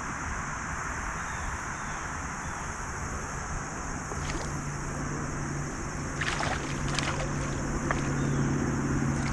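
Wind noise on the microphone out on open water. About halfway through a low, steady hum comes in, and a few short clicks are heard in the second half.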